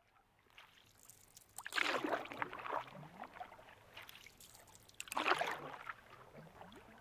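Two swells of rushing, water-like noise, about three seconds apart, from the opening of a slideshow soundtrack before the music comes in.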